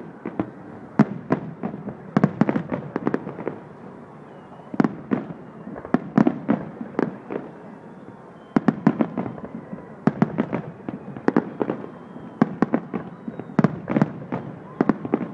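Aerial firework shells bursting in rapid, irregular volleys of sharp bangs over a low rumble, with short lulls between the volleys.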